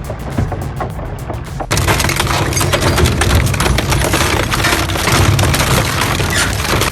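Heavy machinery crushing material: a low rumble with scattered clicks, then, a little under two seconds in, a sudden loud, dense crunching and cracking of material breaking up.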